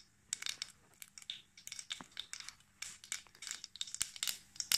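Mustard seeds crackling and popping in hot oil in a pressure cooker, a scatter of irregular sharp pops. This is the tempering stage: the seeds are spluttering in hot oil before the whole spices go in.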